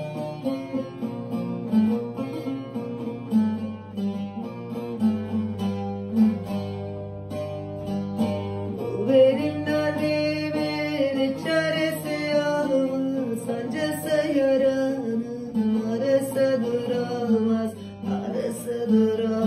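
Bağlama (saz) strummed in a Turkish folk tune, with a woman singing the türkü. Her voice is clearest from about nine seconds in.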